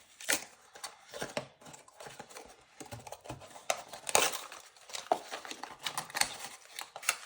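Hands opening a Littlest Pet Shop blind box: an irregular run of sharp clicks, taps and crinkling from the cardboard and packaging.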